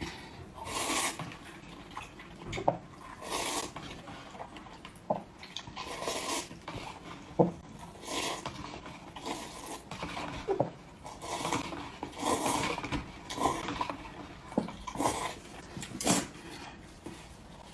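Close-up eating sounds: irregular wet chewing and slurping mouth noises, with sharp clicks of utensils against a dish.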